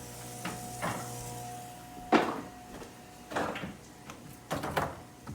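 Kitchen cupboard being opened and closed while a salt container is put away: about six knocks and clunks, the loudest about two seconds in. A faint steady hum runs underneath.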